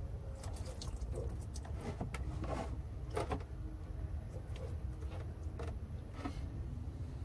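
Scattered light clicks and taps of a brass hose fitting being worked by hand at a diesel tank valve, with diesel dripping into a steel drum below, over a steady low rumble.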